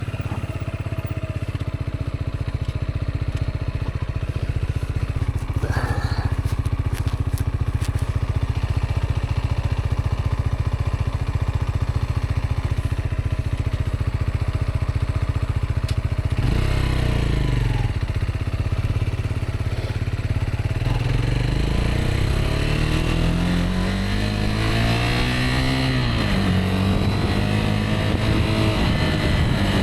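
Rieju Aventura 125's single-cylinder engine running under way, holding a steady note for the first half. From about halfway it revs up and down repeatedly.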